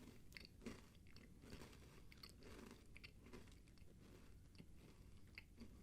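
Faint crunching as a person chews a crisp cinnamon cookie like a graham cracker, with scattered small crackles.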